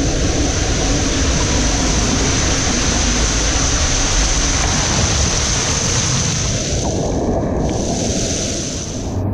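Rushing water and the rider sliding down an enclosed plastic tube water slide: a loud, steady rush of water with wind buffeting the microphone. It eases off slightly near the end as the rider leaves the tube for the open run-out.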